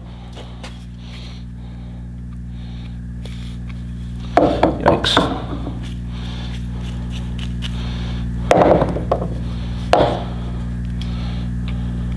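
Heavy steel truck lug nuts with captured washers clinking and knocking against each other and the wooden workbench as they are handled, in three short clusters, over a steady low hum.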